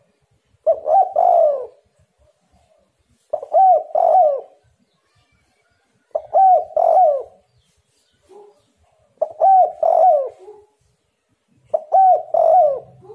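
Spotted dove cooing: five repeated phrases of several low, downward-bending coos, one every two and a half to three seconds.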